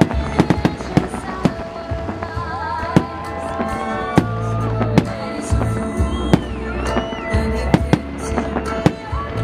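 Aerial firework shells bursting, many sharp irregular bangs, over loud music with a heavy bass.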